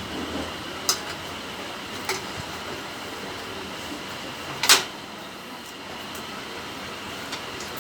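A few short, sharp clicks or taps, three in all, the loudest about two-thirds of the way through, over a steady background hiss with a faint high whine.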